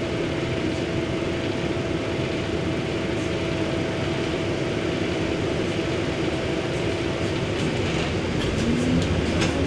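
Cabin sound of an Iveco Euromidi low-entry bus standing with its engine idling: a steady hum with a thin steady whine. Near the end the sound changes and grows a little louder, with a short rising note and a few clicks, as the bus begins to move off.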